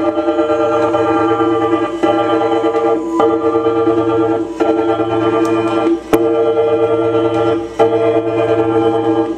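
Live experimental music from a prepared guitar and saxophone ensemble: a loud, organ-like droning chord that breaks off and starts again every second or two, with a sharp click about six seconds in.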